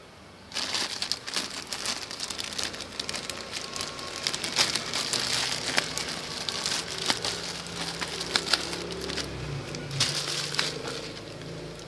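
Clear plastic bag crinkling and rustling as it is handled and pulled off a plastic-wrapped parcel, with many sharp crackles. It starts about half a second in and tails off near the end.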